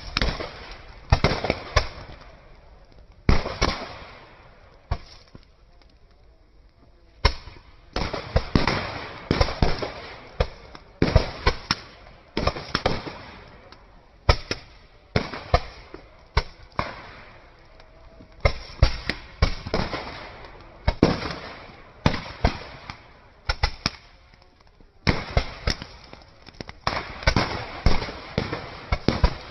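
Rapid, irregular strings of sharp bangs and pops, several a second in clusters, with short lulls between them.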